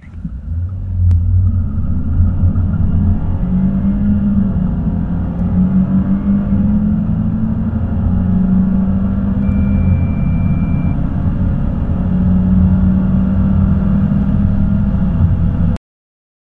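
Car engine heard from inside the cabin under full-throttle acceleration from a standstill, the pitch climbing and dropping back as it goes through the gears. A short high beep sounds about ten seconds in, and the engine sound cuts off suddenly near the end.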